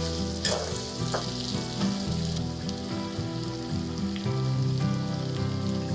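Pork frying in a pan: a steady sizzle, with a few clatters of stirring early on. Background music with held low notes runs underneath.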